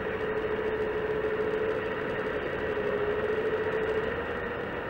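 Hydraulic pump of a Wedico CAT 345D LME RC excavator giving a steady whine while the boom moves. The pitch sags slightly about three seconds in, then recovers.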